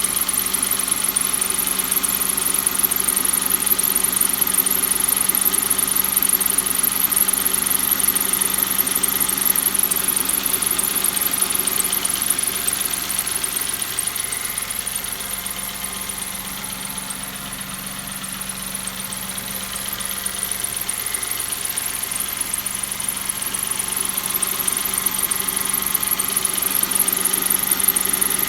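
Car engine idling steadily with its accessory drive belt running, a steady high-pitched hiss over the engine note. The sound eases a little about halfway through and then comes back up.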